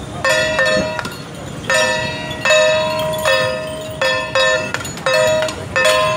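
Struck metal percussion, a gong or bell, ringing about nine times at uneven intervals, some strikes in quick pairs. Each strike starts sharply with a bright, pitched ring that fades within about half a second.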